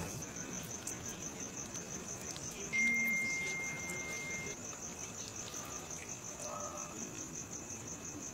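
Crickets chirping in a steady, fast pulsing trill. About three seconds in, a clear steady high tone sounds for about a second and a half, louder than the crickets, and a few faint clicks come and go.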